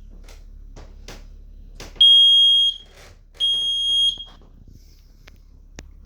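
Smoke alarm sounding two loud, piercing high-pitched beeps, each just under a second long. Faint handling clicks come before them and two sharp clicks after.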